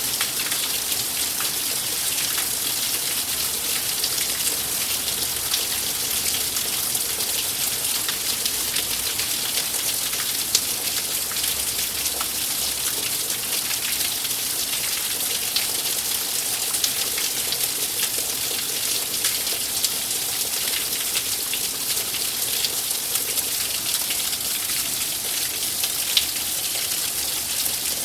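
Steady rainfall: an even hiss of rain with many small, sharp drop ticks and an occasional louder drip.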